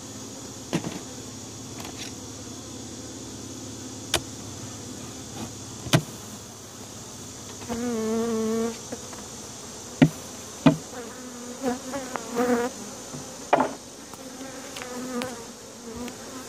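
Honeybee colony buzzing in an opened hive, a steady hum that the beekeeper takes as sounding healthy. Single bees fly close past the microphone with louder buzzes about 8 s and 12 s in, and a few sharp knocks and clicks of the hive being handled cut in.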